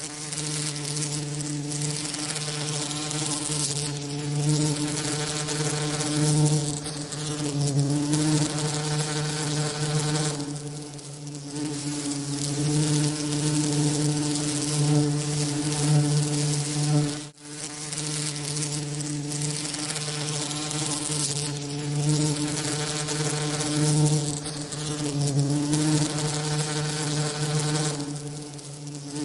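Bee wing buzzing: a steady, continuous drone with a low hum and a stack of overtones over a hiss. It swells and eases slightly, with a very brief cut-out about seventeen seconds in.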